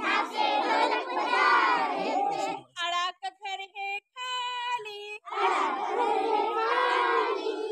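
A group of young children singing together in loud chorus, a Hindi alphabet song in call-and-response. Between the two choral lines, a single woman's voice sings short phrases from about three to five seconds in, and the children answer.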